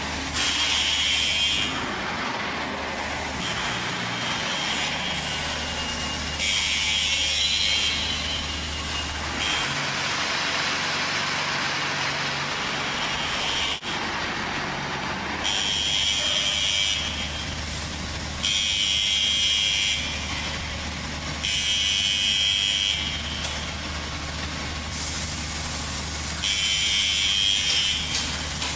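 Concrete block plant machinery running: a steady low hum, with loud hissing bursts of one to three seconds that recur irregularly every few seconds.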